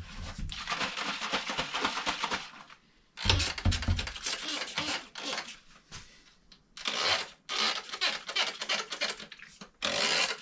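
A plastic trigger spray bottle of water and peppermint oil being shaken hard, the liquid sloshing and rattling inside, in several bouts of a few seconds with short pauses between.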